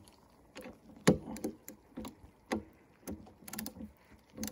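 Small ratchet wrench clicking in short strokes as a 10 mm battery terminal bolt is tightened, about two clicks a second, the loudest about a second in.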